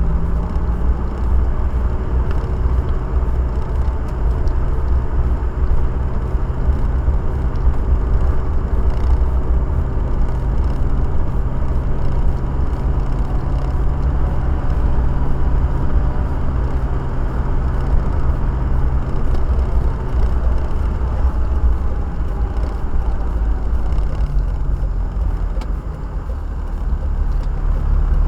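Car driving, heard from inside the cabin: a steady low road-and-engine rumble with an engine hum that drifts slightly in pitch. The level dips briefly near the end before picking up again.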